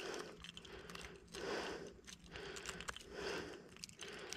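Soft handling sounds and faint ticks as a treble hook is worked out of a silver arowana's mouth, under a soft rushing sound that swells and fades about once a second.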